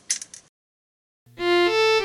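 A few sharp clicks, a brief gap of silence, then background music starts about a second and a quarter in: a synthesizer-like melody over a steady low note.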